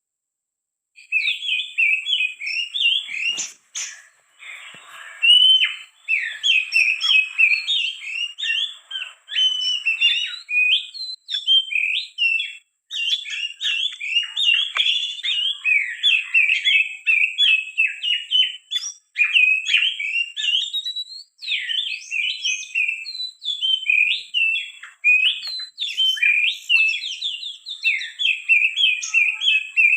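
Oriental magpie-robin song played as a trapping lure: a loud, unbroken stream of quick, varied whistles and chirps, starting abruptly about a second in, with a faint steady high whine underneath.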